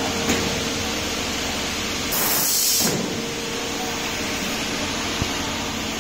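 Steady hiss and hum of a running pneumatic panel machine. About two seconds in comes a short, loud burst of compressed air lasting under a second, typical of the air clamps on the machine's beam being switched.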